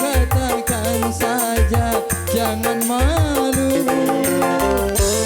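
Dangdut music from an orgen tunggal electronic keyboard setup: an ornamented, bending melody over a repeating bass figure and quick, steady percussion, with no words sung.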